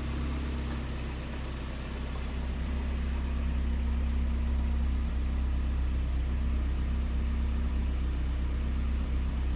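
Mazda Roadster NA6CE's 1.6-litre inline-four idling steadily on freshly fitted NGK Premium RX spark plugs, a little louder from about two and a half seconds in.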